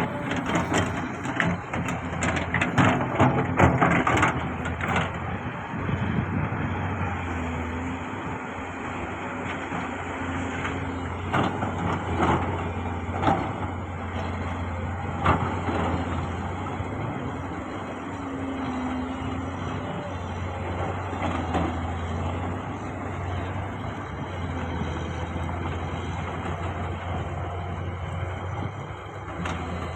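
Diesel engine of heavy earthmoving equipment running steadily, with a burst of knocking and clatter in the first few seconds and a few more sharp knocks around the middle.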